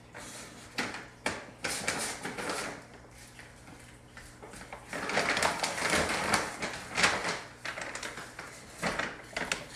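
A paper grocery bag crinkling and rustling as a cat scrambles inside it and shoves it across a wooden floor, with sharp knocks and scrapes. The rustling is busiest about halfway through.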